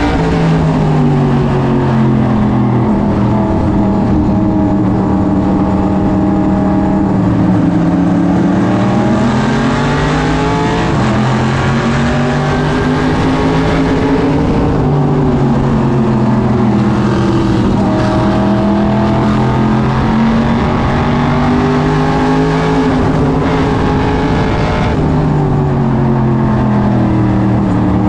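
SK Modified race car's small-block V8 engine heard from inside the cockpit, running hard around the oval. Its pitch rises as the driver accelerates and falls as he lifts, in slow repeated cycles of several seconds each.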